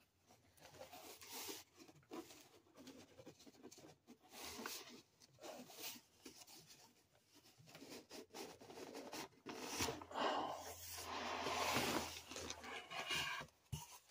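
Rustling, rubbing and scraping of a long cardboard box being handled and lifted while a banjolele is got out, in irregular bursts that grow louder and denser about ten seconds in.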